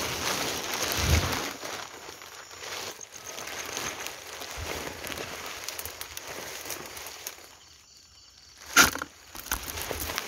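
Leaves and twigs rustling and crackling as brush is pushed aside and a snake-catching tong is worked into a bush, with one sharp snap near the end.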